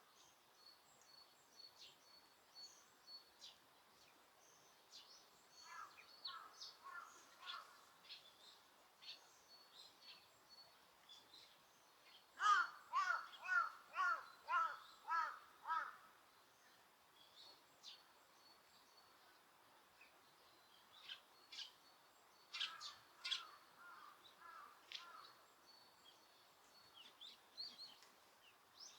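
Park birds calling: three runs of quick repeated calls, the loudest in the middle, over scattered thin, high chirps from small birds.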